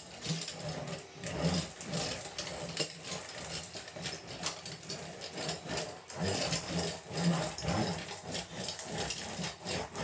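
Heavy steel-drum floor roller pushed back and forth over an uncoupling membrane bedded in fresh cement: an uneven rolling rumble with many small clicks, pressing the membrane down for a full bond.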